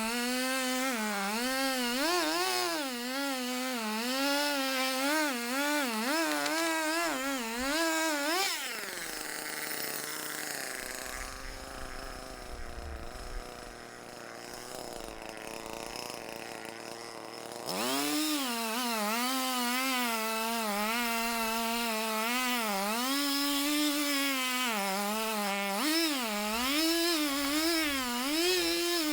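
Echo two-stroke chainsaw at full throttle cutting through wood, its pitch dipping and rising as the chain bites. About 8 s in it drops to idle for roughly 9 s, then revs back up and cuts again.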